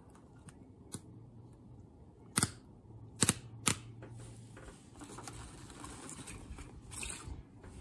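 Sharp fingernail clicks, three of them strongest around the middle, then a crinkling rustle in the second half: the plastic backing being picked at and peeled off a windshield repair kit's adhesive disc close to the microphone.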